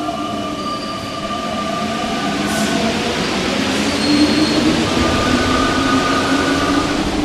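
Paris Metro train passing by: a dense rumble of wheels and running gear with steady whining tones over it, building to its loudest a little past the middle.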